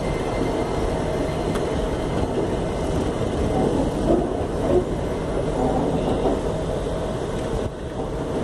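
Indian Railways passenger coaches rolling past on an arriving express train: a steady rumble of wheels on the rails, with a few louder clanks about four and five seconds in.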